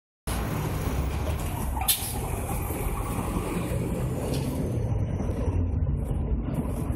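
Scania K 310 articulated city bus's diesel engine running with a steady low rumble as the bus moves off from the stop, with one brief sharp burst of noise about two seconds in.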